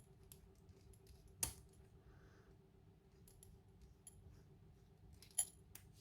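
A few faint, scattered metallic clicks and taps from handling a lock cylinder and its picking tools, with one sharper click about a second and a half in.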